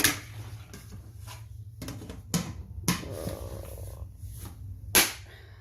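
A few sharp knocks and clicks, the loudest near the end, with a dog's low noises between them.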